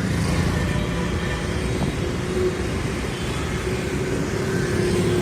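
City road traffic: a steady din of vehicle engines and road noise, with a faint steady hum standing out over the second half.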